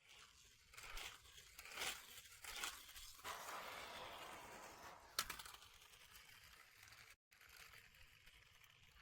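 Faint crunching and rustling noises in uneven bursts, with one sharp click about five seconds in, then a fainter hiss.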